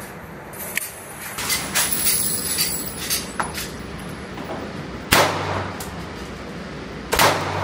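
Pistol shots echoing in an indoor range: two loud shots about two seconds apart in the second half, with several fainter sharp cracks earlier on.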